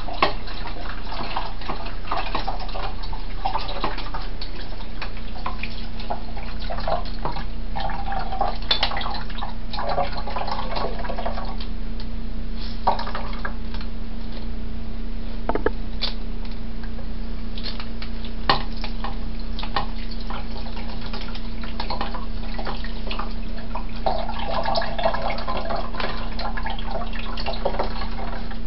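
Water running steadily and dripping into a kitchen sink, with wet squelching as rehydrated textured soy protein is rinsed and squeezed out by hand to wash away its bitter taste.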